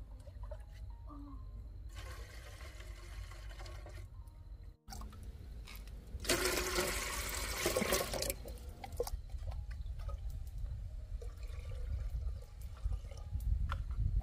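Water being poured into and sloshing in a blackened metal kettle, in spells, the loudest about six to eight seconds in.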